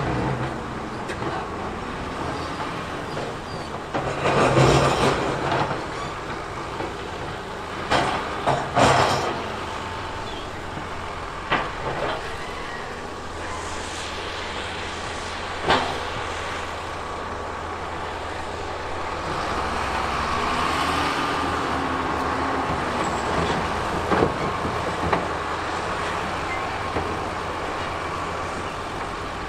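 Heavy earthmoving machinery at work: a diesel engine runs steadily, rising and falling in pitch a couple of times, with loud metal clanks and knocks scattered through, the biggest about four to five seconds in and again around nine seconds in.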